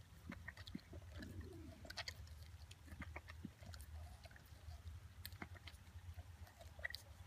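Rhodesian Ridgeback chewing and crunching honeydew melon, heard as faint, irregular crunches and clicks. A low steady hum runs underneath.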